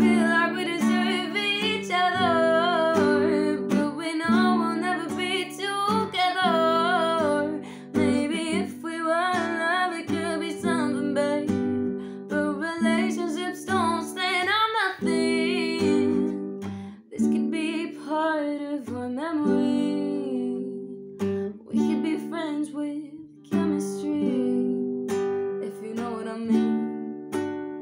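A woman singing to her own strummed acoustic classical guitar; the voice is strongest through the first two-thirds, then the guitar carries on mostly alone with only brief sung lines.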